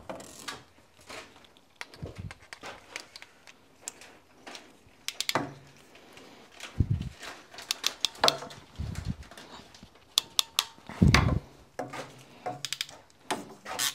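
Scattered clicks, taps and rattles, with a few dull knocks, from PEX water tubing and a hand clamping tool being worked against wooden framing. The loudest knock comes about eleven seconds in.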